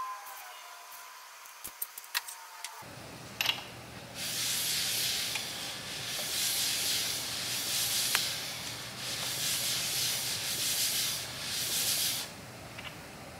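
A few sharp metal tool clicks, then an LS V8 short block turned over by hand with a bar on the crankshaft: the piston rings scrape along the dry cylinder bores in about seven swishing strokes.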